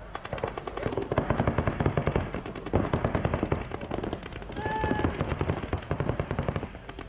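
Paintball markers firing in rapid, overlapping streams from several players at once during a tournament point: a dense, continuous crackle of shots.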